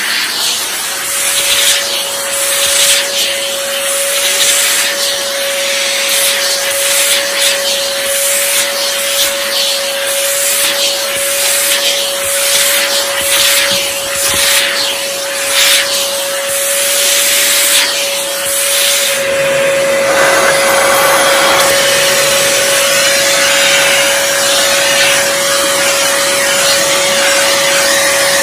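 Dyson DC14 upright vacuum cleaner running with a steady motor whine, pushed back and forth in strokes that come and go in the rushing noise. About two-thirds of the way through the strokes stop and the sound turns steady.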